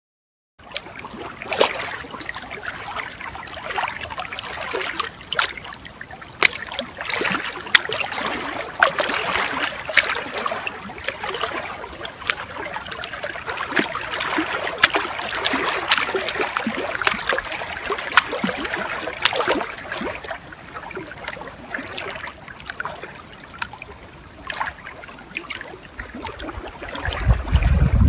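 Small choppy waves lapping and slapping against a kayak hull, an irregular patter of little splashes. About a second before the end, a low wind rumble on the microphone comes up.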